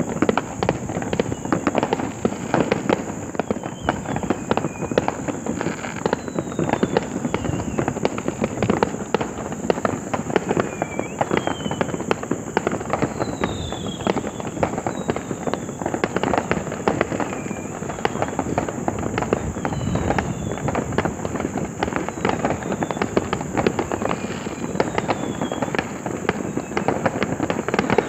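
Many fireworks and firecrackers going off together in dense, continuous popping and crackling, with short whistles that fall in pitch every few seconds.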